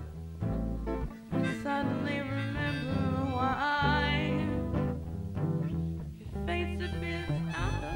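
Background music: a country-style tune with guitar and a moving bass line.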